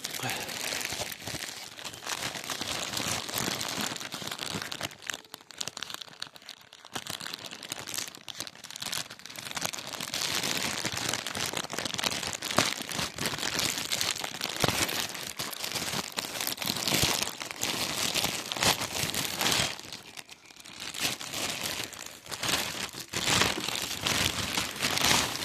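Packaging being crinkled and torn open by hand while a present is unwrapped: a continuous rustle full of sharp crackles, with two brief lulls.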